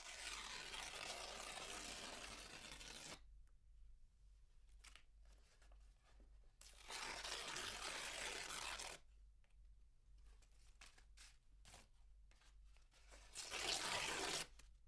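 Paper being torn in three long, slow rips, each lasting two to three seconds, with soft paper crackles between them; the last rip, near the end, is the shortest and loudest.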